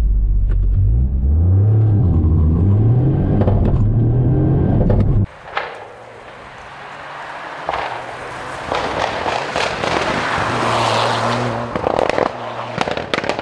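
Toyota GR Yaris's turbocharged 1.6-litre three-cylinder with a Fujitsubo exhaust, driven hard. First it is heard from inside the cabin, revving up and down through the gears. About five seconds in it switches to the car heard from the roadside, approaching and passing, its exhaust popping and crackling with the anti-lag.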